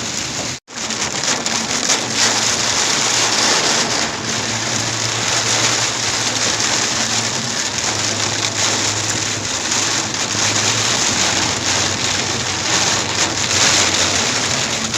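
Heavy rain pelting a moving car, a dense steady hiss over the low hum of the car. The sound cuts out for an instant about half a second in.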